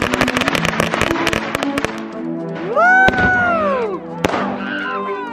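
Fireworks: a ground firework crackling with rapid pops for about two seconds, then a loud whistling firework that rises and falls in pitch, a sharp bang about four seconds in, and another whistle falling in pitch near the end, over background music.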